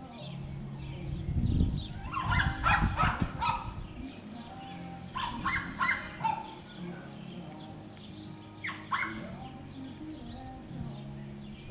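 Schnoodle puppies yipping and barking in short, high-pitched bursts as they play. The loudest cluster comes about two seconds in, another around five to six seconds, and a brief one near nine seconds.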